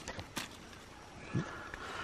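Light rustling in dry leaf litter and twigs, with a couple of sharp clicks in the first half second and a soft thump a little past halfway.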